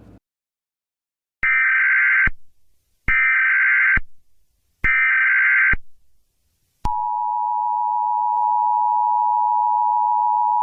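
Emergency Alert System alert: three short bursts of the SAME digital header, each just under a second long with about a second between them, then the steady two-tone EAS attention signal starting about seven seconds in.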